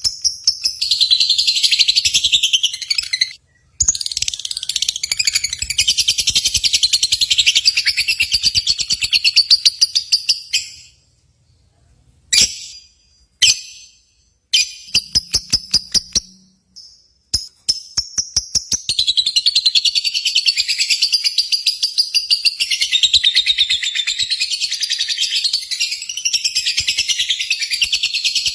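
Lovebird song: long, loud trills of very rapid, high chattering notes, broken a few times by short pauses.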